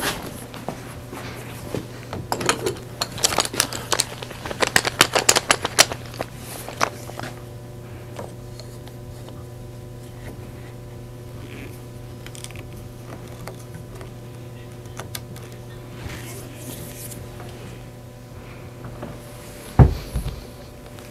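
Wooden hand screw clamp being fitted and tightened on a glued joint: a quick run of clicks and knocks of wood and metal during the first several seconds, then quieter handling. A steady low hum comes on about seven seconds in, and a single heavy thump sounds near the end.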